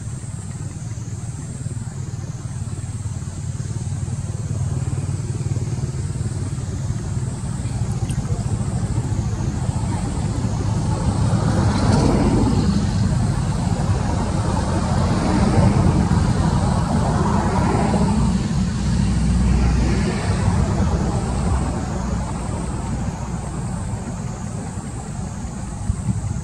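A motor vehicle engine running: a low steady rumble that grows louder over the middle stretch and then eases off again.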